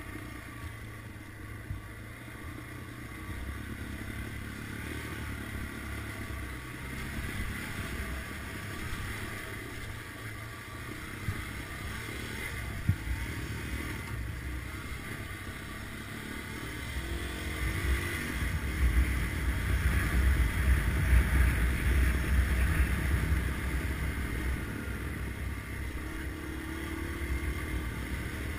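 Small single-cylinder Yamaha dual-sport motorcycle running steadily on a dirt trail, heard from the riding bike, with rumbling wind noise on the microphone. The wind rumble grows louder past the middle, and there is one sharp knock about halfway through.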